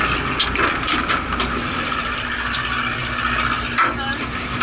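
Steady hum of a fishing boat's engine under a rush of wind and water, with people talking in the background and a few light clicks in the first second and a half.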